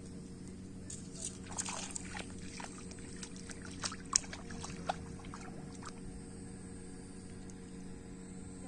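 Light splashing of wading in shallow river water: a scatter of small splashes between about one and five seconds in, over a steady low hum.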